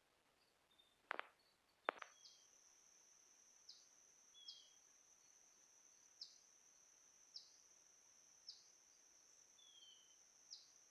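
Quiet woodland ambience: two sharp clicks or snaps about a second apart, then an insect starts a steady high-pitched trill that dips briefly about once a second, with a few faint bird chirps.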